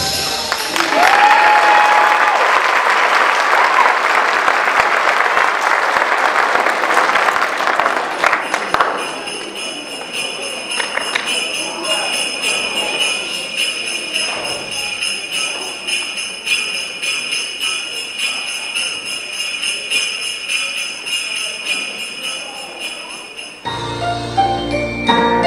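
Audience applause for the first several seconds, giving way to a steady shimmering jingle of hand-held jingle bells. Music with a low beat starts near the end.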